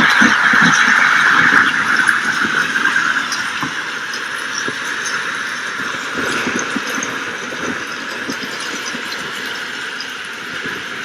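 Storm rain hissing steadily with scattered low rumbling. It is loudest in the first couple of seconds, then eases off and settles.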